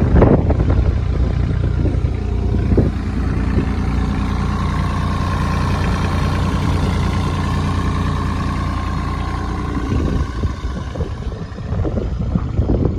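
Kubota diesel engine of a Bobcat E27Z mini excavator running steadily, with a steady whine above the engine note through the middle. The sound turns rougher and less even near the end.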